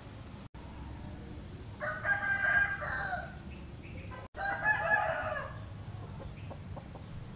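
A rooster crowing twice, each crow a little over a second long, the second starting about two and a half seconds after the first.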